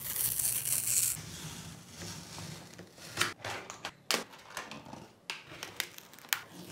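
Packing tape torn off a cardboard mailer with a loud rasping rip lasting about a second. This is followed by cardboard handling and a utility knife cutting tape on a cardboard box, with a few scattered clicks and knocks.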